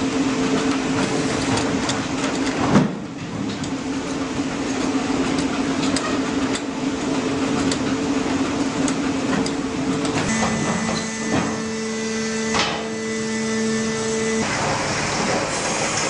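Sawmill log-handling machinery running: a rail-mounted log loader crane and a chain log conveyor. A steady motor hum shifts to a different pitch about ten seconds in and stops near the end, with scattered metallic clanks, one loud clank about three seconds in.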